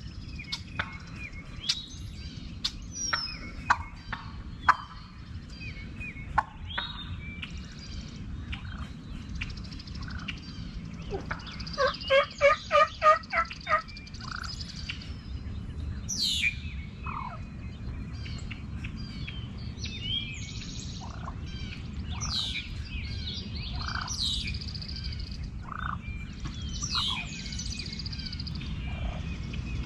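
Wild turkey gobbling: one rapid, rattling gobble about halfway through, the loudest sound here. Songbirds chirp in the second half, and scattered sharp clicks come in the first few seconds.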